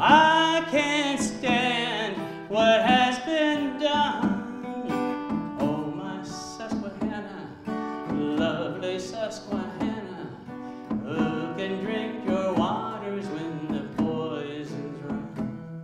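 Acoustic guitar picking and strumming through an instrumental break in a slow folk song, with a wavering, vibrato melody line held over it for the first few seconds.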